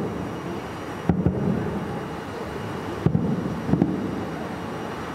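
Distant fireworks shells bursting: a handful of deep booms, a pair about a second in and two more around three to four seconds in, each trailing off in a rumble over a steady background hiss.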